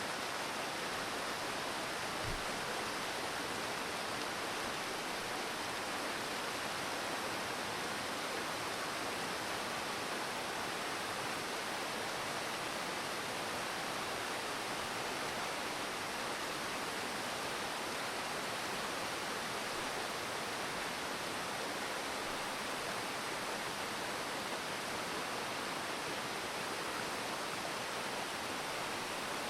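Steady rush of falling water, an even hiss that holds at the same level throughout.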